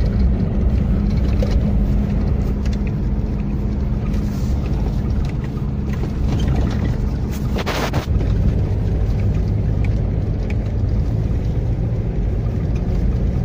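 Steady road and engine noise of a car driving on a highway, heard from inside the cabin, with a brief hiss a little past halfway.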